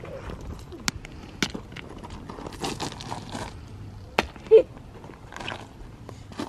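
Feet crunching on loose gravel and stones clicking together as rocks are picked up and thrown, with a few sharp clicks. About four and a half seconds in there is a short, loud pitched sound, the loudest moment.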